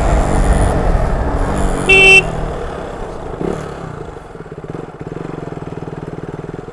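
Motorcycle engine dying down as the bike slows, with a short horn beep about two seconds in; the engine then settles into an even idling putter.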